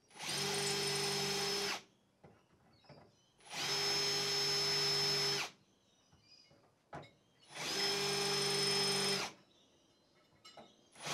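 Power drill with a cobalt bit drilling out the spot welds in a Datsun's rusted sheet-steel rear quarter panel. It runs in three steady bursts of just under two seconds each, with pauses of about two seconds between them.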